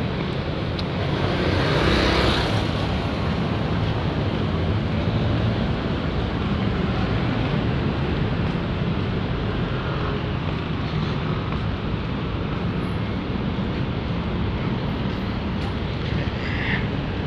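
Steady road traffic noise with low wind rumble on the phone's microphone. A motorcycle passes close about two seconds in.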